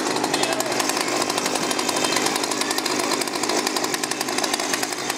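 Two-stroke chainsaw engine running steadily at speed.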